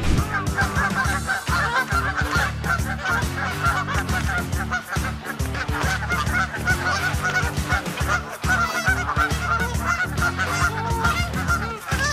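Canada geese honking loudly and continuously during a territorial fight, many calls overlapping in rapid succession.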